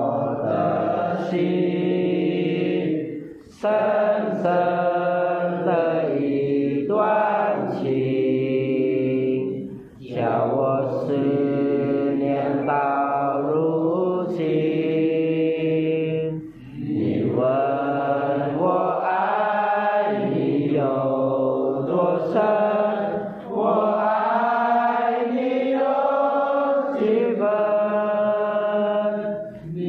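A class of young men reading Chinese aloud together in unison: a chant-like group recitation in long phrases, broken by brief pauses about every six or seven seconds.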